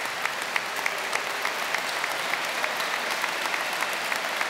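A large crowd applauding steadily, with many sharp individual claps standing out.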